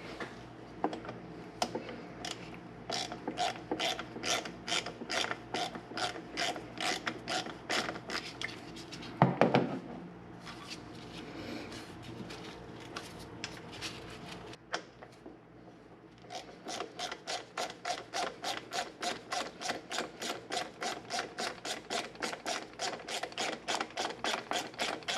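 Hand ratchet wrench clicking in long even runs, about four clicks a second, as bolts are turned. There is a louder clunk about nine seconds in and a quieter pause before the clicking resumes.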